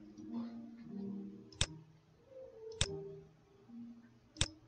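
Three sharp computer mouse clicks, spaced a little over a second apart, over soft background music.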